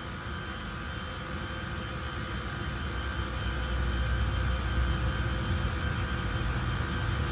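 Creality Falcon 2 diode laser cutter with a 40 W head, running a cutting pass through 10 mm bamboo: a steady whirring hiss from its fans and air assist, with a low rumble that builds up from about halfway through.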